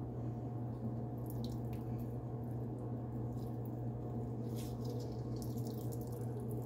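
A hand squeezing and working wet bread dough in a glass bowl, with faint, scattered sticky squelches, over a steady low hum.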